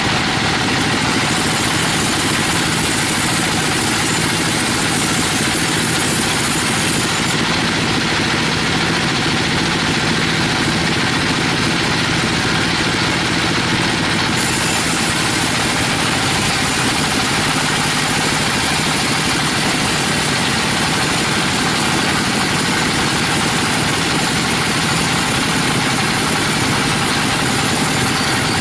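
A 42-inch band sawmill running steadily, its blade sawing lengthwise through a teak log.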